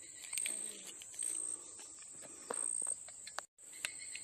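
Insects trilling steadily at a high pitch, swelling into brief louder pulses three times, with light clicks and rustling of dry leaves and twigs as a hand works close in the leaf litter.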